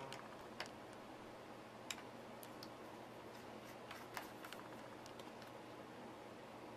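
Scattered faint clicks and ticks of a small screwdriver working the screws in a laptop's open underside, with small metal screws being lifted out, over a low steady hum.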